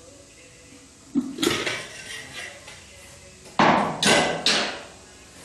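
Metal clanks and knocks as a car's hubcap is pried off and handled: a first knock, a cluster of lighter clinks, then two loud ringing clanks past halfway.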